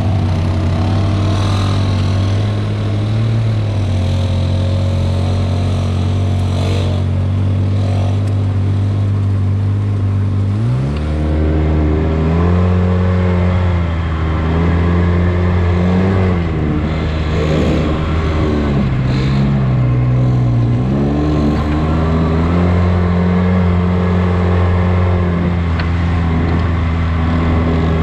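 Side-by-side off-road vehicle engine running steadily, then climbing in pitch about ten seconds in. It rises and falls with the throttle for several seconds before settling into a steady run.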